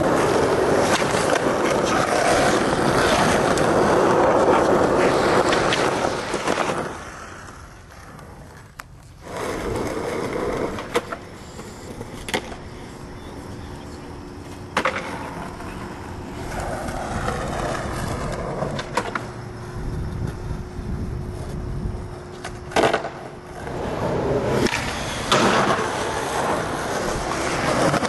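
Skateboard wheels rolling over rough asphalt, loudest in the first several seconds, with several sharp clacks of the board's tail popping and landing spread through.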